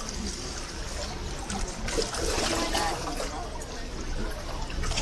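Water splashing and trickling, with faint voices over a low rumble.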